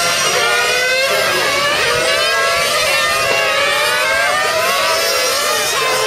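Several radio-controlled model race cars' small two-stroke engines screaming at high revs, many overlapping whines rising and falling as the cars accelerate and brake around the circuit.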